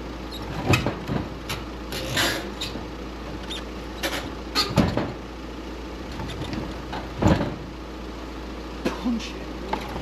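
An engine idling steadily, with several sharp knocks and clatters of scrap being handled, the loudest about seven seconds in.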